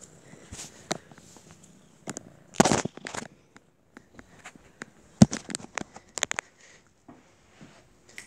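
Handling noise close to a phone's microphone: irregular clicks, knocks and short rustling scrapes. A longer rustle comes about two and a half seconds in, a sharp knock about five seconds in, then a quick run of clicks.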